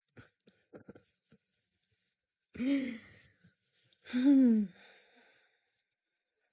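A woman's voice making two short wordless sounds, each falling in pitch and breathy, about a second and a half apart, after a few faint clicks.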